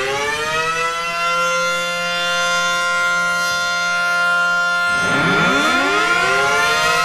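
Blower motors of an automatic rollover car wash winding up with a rising whine that levels off into a steady whine; about five seconds in, a second motor winds up and joins it.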